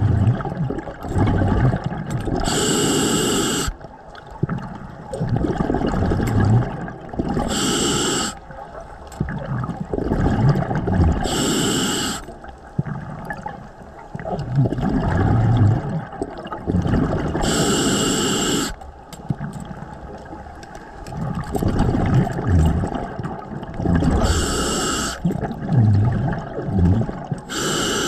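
Scuba diver breathing through a regulator underwater: a short hiss of the demand valve on each inhale, then a longer low rumble of exhaled bubbles, about six breaths in slow, even rhythm.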